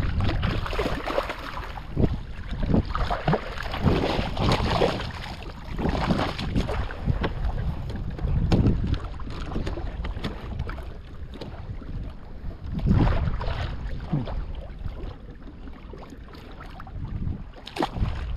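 Wind buffeting the microphone over a plastic fishing kayak, with irregular knocks and rustles as a just-landed trout is handled over a small cooler.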